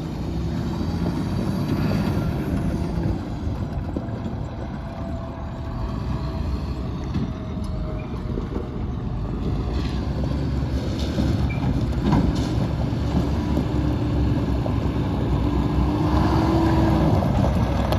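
International 4300 truck's DT466 diesel engine idling steadily, a low rumble with a faint wavering tone coming through late on.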